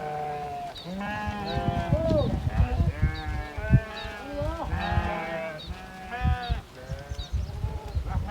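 A flock of sheep bleating, many animals calling over one another in quick succession, with scattered low thumps and rustling underneath.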